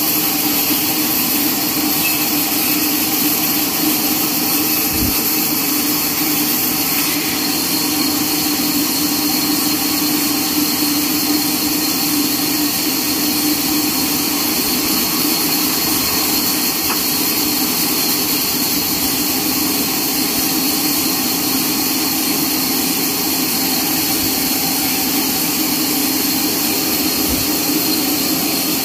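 Horizontal bandsaw mill running steadily while sawing a neem log: a constant high whine over a low hum, unchanging throughout.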